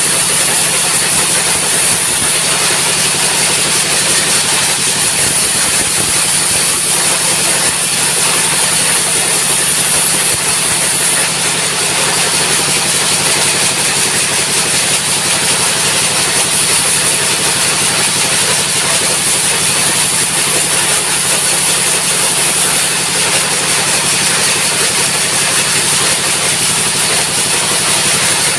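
Diesel engine of a sawmill running steadily and loudly, with a constant high hiss and no change in speed.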